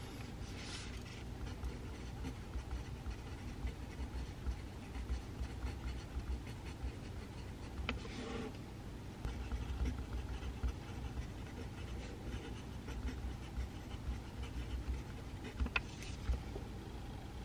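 Steady low room hum with a few brief, soft pencil scratches on paper, about a second in, around eight seconds and near the end, and a couple of faint clicks.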